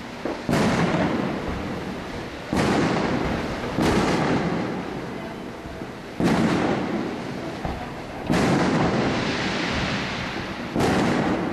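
Aerial firework shells bursting overhead: six loud booms spaced one to two and a half seconds apart, each trailing off in a long echoing rumble.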